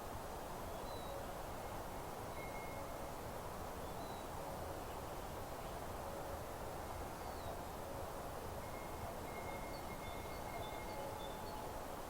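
Faint birdsong in a meadow: thin held whistles and short high chirps, with a few faint lower repeated notes, over a steady open-air hiss.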